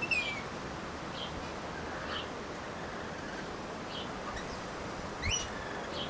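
Small birds chirping: short high chirps about once a second, with a quick rising call a little after five seconds in. A low thump comes at the same moment, over a steady outdoor hiss.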